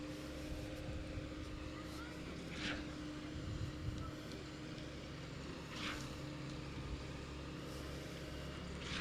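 Heavy machinery engine running steadily at a construction site, with a short hiss repeating about every three seconds.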